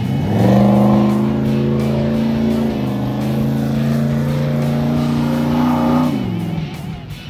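Rock buggy engine revving up hard as the buggy accelerates, held at high revs for several seconds with a brief dip, then dropping off about six seconds in.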